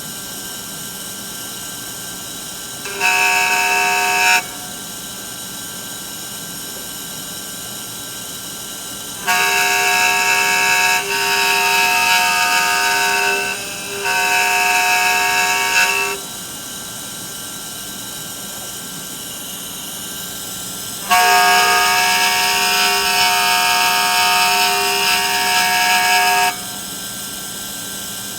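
DIY CNC engraving machine running: a steady background hum, broken three times by a loud, steady multi-pitched motor whine as the machine moves. The first burst is short, a few seconds in; the second lasts about seven seconds, about a third of the way through; the third lasts about five seconds, near the end.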